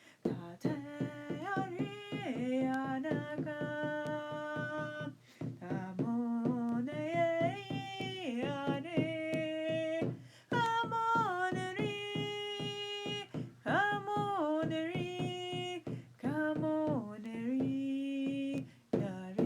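Wordless chant hummed and sung in long held notes, the voice stepping up and down between pitches with short breaks between phrases, over a steady drumbeat.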